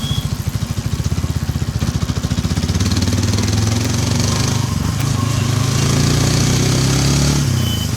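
Hero Xtreme 160R 4V motorcycle's single-cylinder engine pulling while riding. Its exhaust beats are distinct at low revs at first, then the engine climbs and smooths out as wind hiss builds. It eases off briefly near the end.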